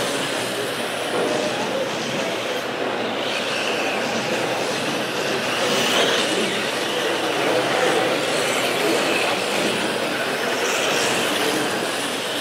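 Several electric radio-controlled mini cars racing: a steady high whirring of motors and tyres that swells and fades as cars pass by.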